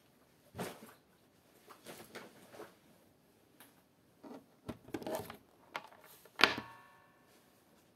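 Scattered knocks and taps, the loudest a sharp clink about six and a half seconds in that rings briefly.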